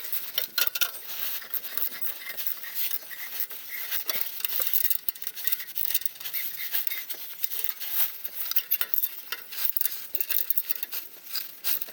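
Hand tools working on the exhaust's spring-loaded joint bolts: a run of small, irregular metallic clicks and clinks with rubbing, as the bolts are tightened up.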